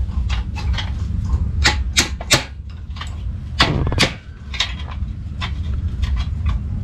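Hammer striking a steel rod on a metal vise stand: a series of sharp, irregular metallic blows, the loudest bunched about two to four seconds in, over a steady low rumble.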